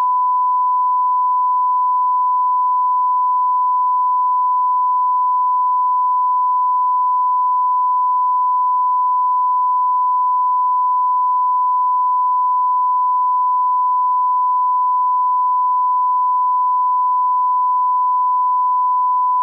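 Steady 1 kHz sine-wave test tone at one unchanging pitch: the broadcast line-up reference tone that runs with colour bars at the head of a programme tape.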